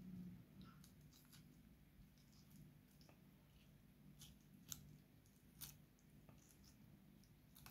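Near silence: a few faint, soft squelches and clicks of a bare hand squeezing and mixing sliced onion and mashed tomato in a ceramic bowl, the clearest two about halfway through, over a faint low hum.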